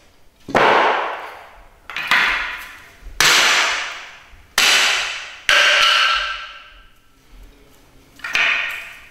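Hatchet chopping into the wooden pieces of a broken chair on a concrete floor: six sharp strikes, each ringing out in the bare room. The first five come about every second and a half, then a pause before a last one near the end.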